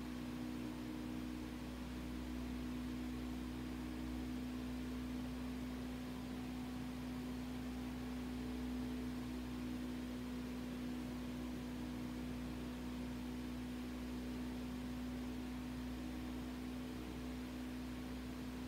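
Steady hum holding one clear pitch, with a faint low rumble beneath it and nothing else happening.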